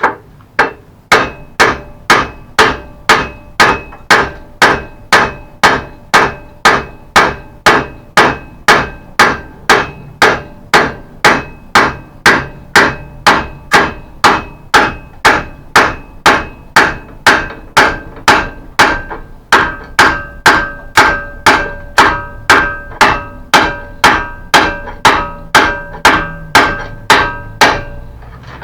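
Hammer blows on a steel rod used as a drift to drive out the hinge pin of a mobility scooter. The blows are steady and even, about two a second, each with a metallic ring, and the ringing pitch shifts about two-thirds of the way through.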